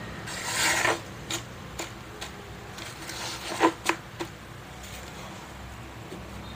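A bundle of bamboo incense sticks rustling and rattling as it is worked in a plastic jar of oil, followed by a few sharp clicks and knocks from the sticks and plastic containers being handled. The two loudest knocks come a little past the middle. A low steady hum runs underneath.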